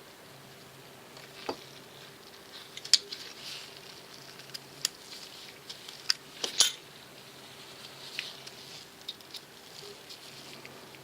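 Light metal clicks and taps of small folding-knife parts being handled and fitted together during reassembly, scattered and irregular, with the sharpest clicks about three seconds and six and a half seconds in, over a faint steady hum.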